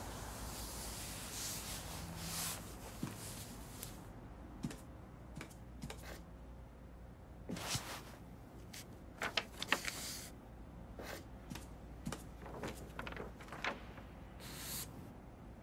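Sparse handling sounds: scattered light clicks, taps and knocks of objects being picked up and set down. Near the end comes a short scrape of a sheet of cardboard slid across a wooden desk.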